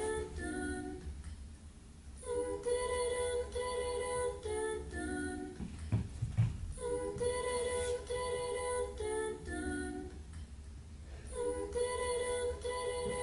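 A woman's voice singing a short wordless phrase: several repeated notes on one pitch, then a few notes stepping down. The phrase is repeated about every four and a half seconds, with short pauses between.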